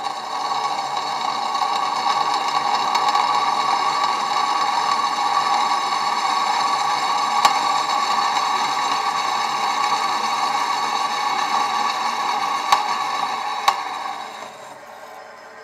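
1962 Meddings pillar drill running, its bit cutting through 5 mm mild steel plate with a loud, steady cutting noise. Three sharp ticks come in the second half, and near the end the cutting stops, leaving the drill running more quietly.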